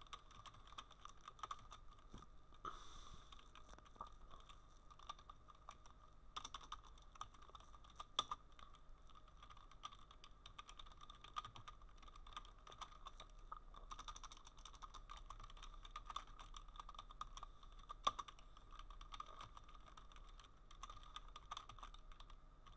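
Typing on a computer keyboard: a fast, irregular run of faint key clicks, broken by a few sharper single key strikes, over a faint steady hum.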